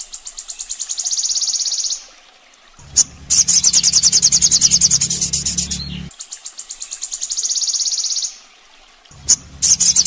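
Looped song-tutor recording for olive-backed sunbirds: a rapid, high, buzzing trill in phrases of a few seconds, some louder and some fainter. The phrases are split by short gaps, and two of the gaps end in a sharp click. A low hum runs under part of it.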